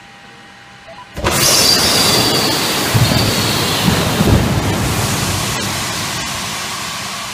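Airbus A320 passenger door's emergency escape slide deploying: a sudden loud rush of gas about a second in as the slide inflates, with a couple of low thumps as it unfolds onto the floor, the hiss slowly fading as the slide fills.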